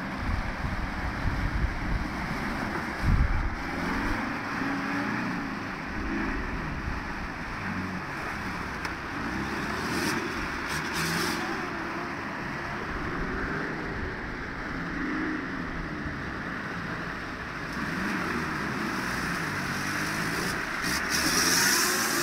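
Off-road 4x4's engine revving up and falling back again and again as it churns through deep mud and water, with mud and water splashing around the wheels. There is a heavy low thud about three seconds in.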